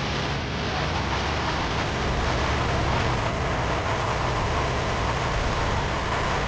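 A motor vehicle's engine runs steadily, with a low rumble under a constant rush of driving and wind noise.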